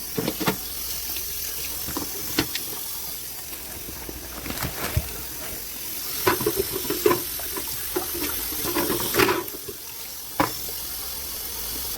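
Kitchen tap running steadily into a sink as live lobsters are rinsed, with several sharp knocks and clatters of shells against the sink. The running water cuts off suddenly at the end.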